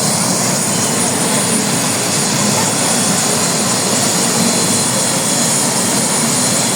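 Helicopter running close by: a loud, steady rush of engine and rotor noise with a thin high whine over it.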